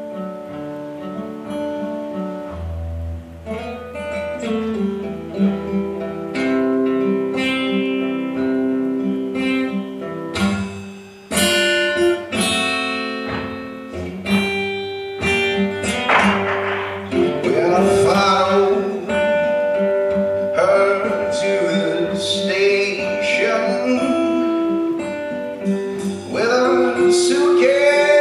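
Live band playing: picked acoustic guitar, with electric bass coming in about three seconds in and drums from about ten seconds. A voice sings over it from about halfway.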